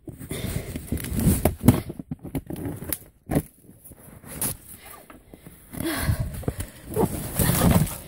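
Irregular crunching and thumping of footsteps wading through deep snow, with rustling as the camera is jostled. The crunching thickens in the last couple of seconds.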